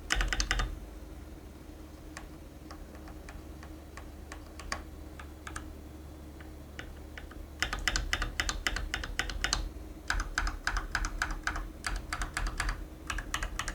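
Typing on an Akko 3098B Plus mechanical keyboard fitted with light Akko V3 Pro Cream Yellow linear switches: quick runs of keystrokes, with only a few scattered key presses in a lull in the middle.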